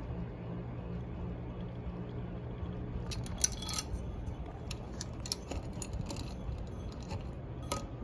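Hardware House Palladium ceiling fan running with a steady low motor hum. From about three seconds in, scattered light metallic clicks and clinks sound over it, the sharpest one shortly after they begin.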